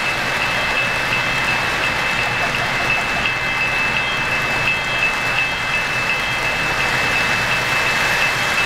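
Three-rail O-scale model freight train rolling past on the track: a steady rushing clatter of metal wheels, with a thin high tone pulsing about three times a second.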